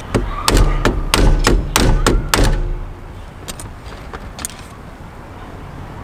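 Pliers and a screwdriver clicking and knocking against a steering wheel hub while working at a screw with a rounded-off head: a quick run of sharp taps and thunks with low thumps for about two and a half seconds, then a few scattered clicks.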